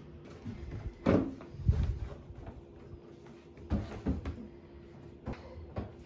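Knocks and thumps of a painted wooden nightstand being tipped, set down and handled: a sharp knock about a second in, a heavy thud half a second later, then a cluster of lighter knocks around four seconds and two small ones near the end.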